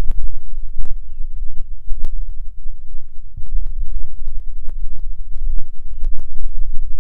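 Wind buffeting the microphone in a heavy, uneven low rumble with frequent crackles, and birds calling faintly a few times in short high calls.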